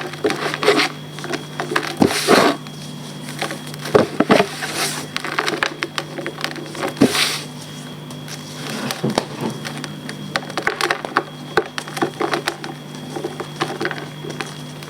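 Blocks of reformed gym chalk being crushed and crumbled, with crisp crunches in bursts every couple of seconds and fine crackling between them. A faint steady hum runs underneath.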